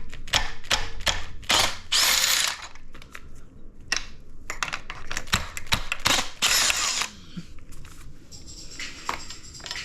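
Bolts being undone on a car engine on a stand: a power tool whirs in two short bursts, about two and six and a half seconds in, between many sharp clicks of tools on metal.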